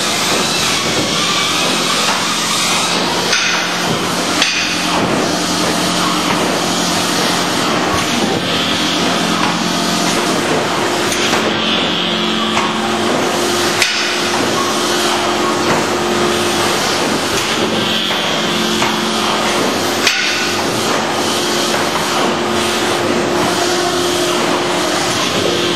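Automatic stretch-film vacuum packing machine running: a loud, steady mechanical noise with a hum and a few sharp knocks. The hum changes pitch about halfway through.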